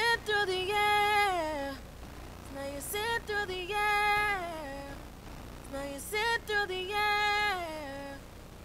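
A high singing voice, unaccompanied, sings a wordless melodic run three times, each phrase holding a high note and then sliding down in pitch.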